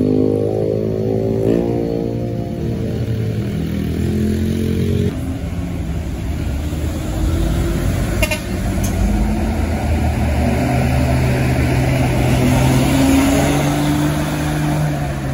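Heavy diesel truck engines running close by under load, a steady low drone. The sound changes abruptly about five seconds in, and the engine pitch rises slightly in the second half.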